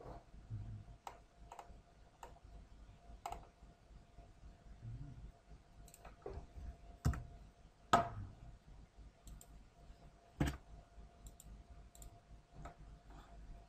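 Computer mouse clicking at irregular intervals, with a few louder clicks, over a faint steady electrical hum.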